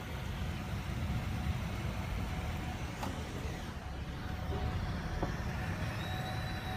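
Steady rushing noise of a heavy rain and hail storm, with cars driving through a flooded street and a low rumble throughout. A couple of faint ticks stand out.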